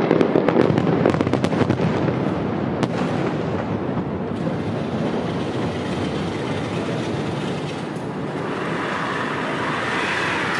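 Fireworks bursting: a rapid run of crackling pops over the first three seconds or so, then the pops stop and a steady background noise is left.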